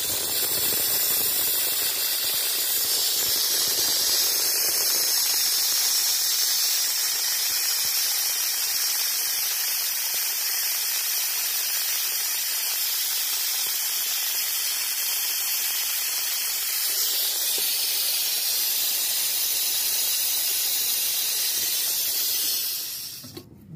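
Vacuum fluid extractor hissing steadily as it sucks engine decarbonizing fluid out of the cylinders through a thin tube in the spark plug holes. The hiss cuts off suddenly near the end.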